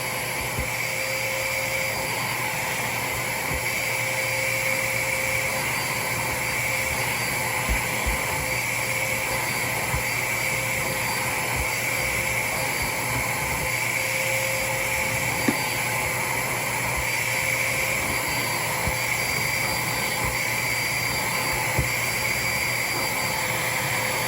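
DeWalt wet/dry shop vacuum running steadily, a constant whine over rushing air as it sucks up sanding dust through a hose attachment, with a few faint ticks.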